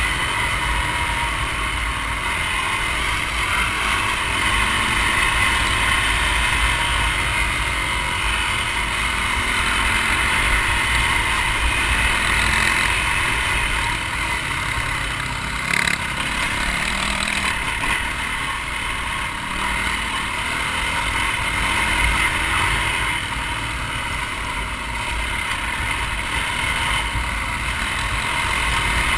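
Dirt bike engine running steadily as it rides along, heard through a helmet-mounted camera with a heavy rumble of wind noise on the microphone.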